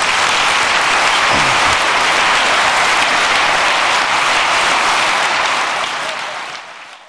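Large auditorium audience applauding steadily, the clapping fading out near the end.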